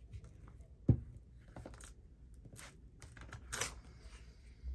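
Craft materials handled on a tabletop: an object set down with a sharp knock about a second in, light clicks and taps, a brief rustle of paper near the end and another knock at the close.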